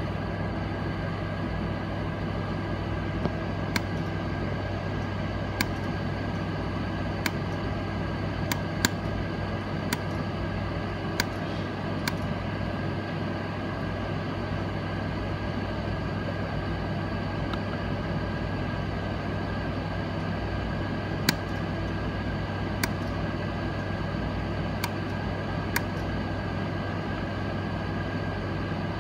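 Small sharp metallic clicks of a stone-setting hand tool against the gold mounting of a diamond piece, about a dozen spread irregularly, with a gap in the middle, over a steady low hum.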